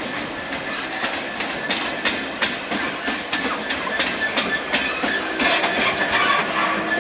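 DB Schenker Class 66 diesel locomotive running light past at close range. The engine is running and the wheels clatter over rail joints and pointwork in a run of sharp clicks, growing louder towards the end as it comes alongside.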